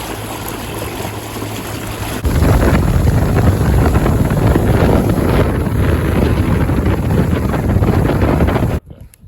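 Motorboat running across open water with heavy wind noise on the microphone, a steady engine hum underneath. It gets much louder about two seconds in and cuts off abruptly near the end.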